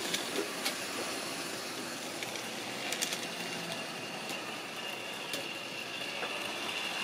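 Model railway locomotive running on sectional track: a steady whirr from its small electric motor and gears, with now and then a sharp click as the wheels cross rail joints and points.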